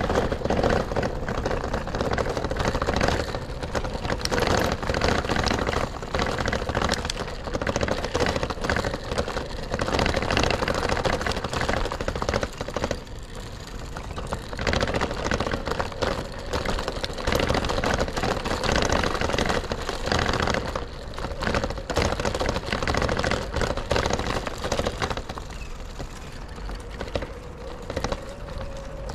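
Riding noise of a bicycle on city streets: a dense, continuous rattle of rapid clicks from the bike, over a low rumble of surrounding traffic.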